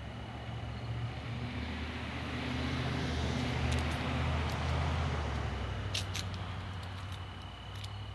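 A motor vehicle passing by: a low engine rumble that builds to its loudest around the middle and then fades away. A steady high insect trill runs underneath, and a few sharp ticks come near the end.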